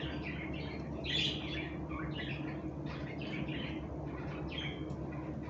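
Birds chirping and squawking in short, irregular calls over a steady low hum.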